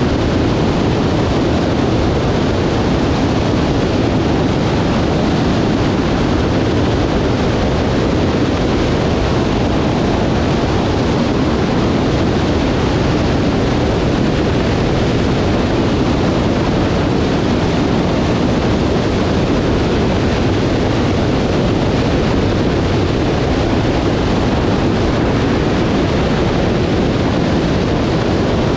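Cessna 152's four-cylinder Lycoming engine running steadily under a heavy, even rush of wind on a wing-mounted camera's microphone.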